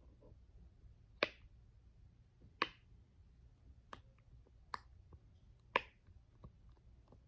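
Silicone dinosaur pop-it fidget toy being pressed, its bubbles popping one at a time: about five sharp, irregularly spaced pops with fainter clicks between. The owner calls this pop-it terrible to pop.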